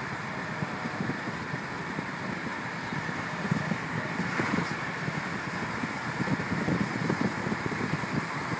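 Road noise inside a moving car, a steady rush with uneven low buffeting of wind on the microphone.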